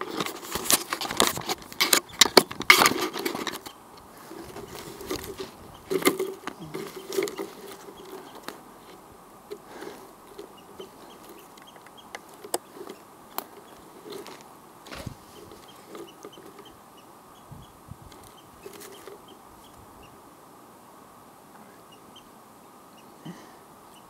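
Leaves and branches rustling and crackling as a bush is pushed through, loud in the first few seconds, then only occasional soft rustles and clicks.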